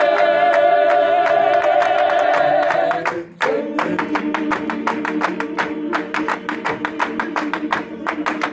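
Gospel choir singing in many voices with steady hand clapping. A held chord breaks off briefly about three seconds in, then the singing goes on lower under a regular clapped beat.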